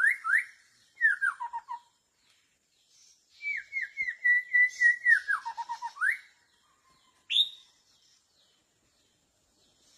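White-rumped shama song: loud, clear whistled phrases, several of them quick falling runs of notes, with a longer phrase in the middle and a single short rising note near the end before it falls quiet.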